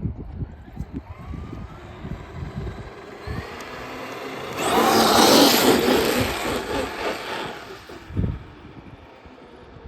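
Traxxas XRT brushless electric RC monster truck running. Its motor whine rises faintly as it speeds up, then a loud rush of motor and tyre noise builds about halfway through, peaks and fades over about three seconds as the truck passes close by. Low wind buffeting on the microphone runs underneath.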